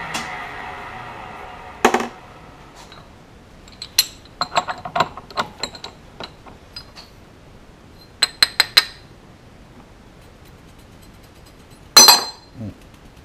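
Scattered metallic clinks and clatter as aluminium chips are brushed off a milling-machine vise and the machined piston is handled and lifted from its jaws, with the loudest clatter about 12 seconds in.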